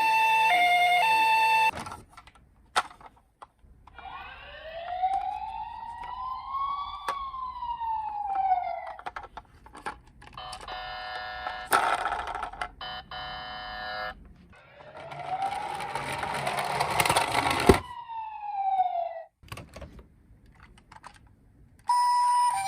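Toy emergency-vehicle minicars' electronic sirens: a two-tone hi-lo ambulance siren at the start and again near the end, and in the middle a wailing siren that slowly rises and falls, twice. Between the two wails there is a few seconds of steady stacked beeping tones, and a few sharp clicks come in here and there.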